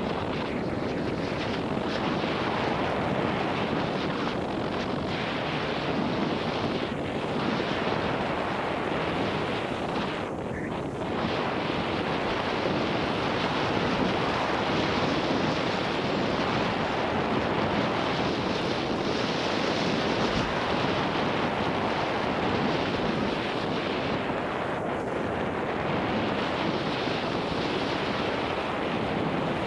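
Steady rush of wind over a helmet-mounted camera's microphone while riding a mountain bike down a dirt trail, dipping briefly about ten seconds in.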